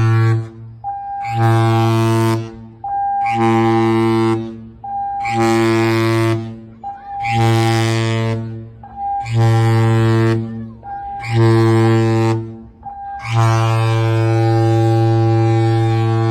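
Cruise ship's horn sounding the general emergency alarm for a muster drill: short blasts about a second long, every two seconds, then one long blast near the end, the close of the seven-short-one-long signal. A thinner, higher steady alarm tone sounds in the gaps between blasts.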